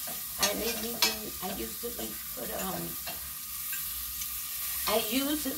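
Mushrooms sautéing in a frying pan, sizzling steadily while a utensil stirs and scrapes them around the pan, with two sharp knocks of the utensil against the pan about half a second and a second in.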